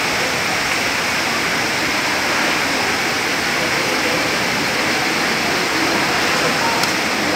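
Steady hubbub of a large crowd, many voices blending into an even hiss with no single voice standing out.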